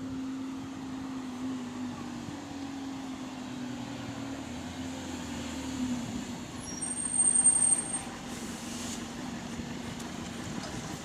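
Bus engine running steadily on the move, a low drone heard from inside the saloon, with a brief high squeal about seven seconds in and a short hiss of air just after it, the kind of air-system noise the title puts down to an air leak.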